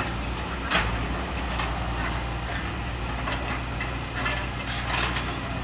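A heavy diesel engine of road-work machinery running steadily at idle, with a few short scrapes and knocks over it.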